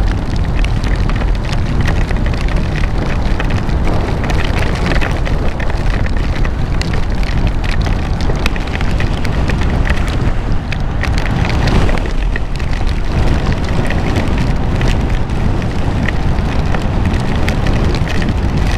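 Heavy wind rumbling over a motorcycle rider's helmet and microphone at riding speed, with rain striking the helmet in many small ticks and patters.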